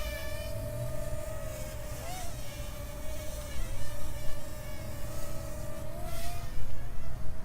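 Parrot Mambo mini quadcopter's propellers buzzing in a steady whine as it flies, the pitch wavering a little while gusts push it around. Wind rumbles on the microphone underneath.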